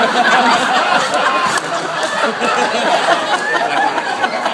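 Audience laughing and chattering, many voices at once.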